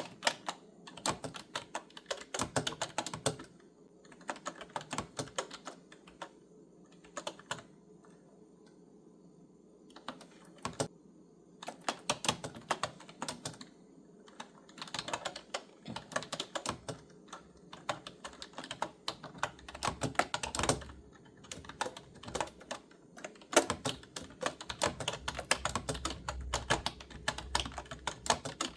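Clicky computer keyboard being typed on in spurts of rapid keystrokes with short pauses between them, the typing growing denser and nearly continuous in the last few seconds.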